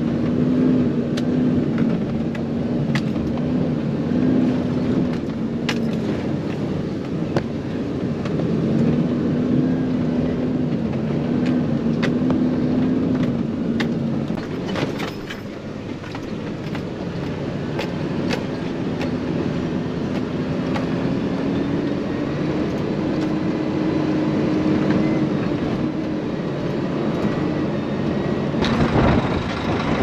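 Truck engine running heard from inside the cab while driving, its pitch rising and falling a little, over a steady rushing noise with scattered sharp ticks. The sound changes abruptly near the end.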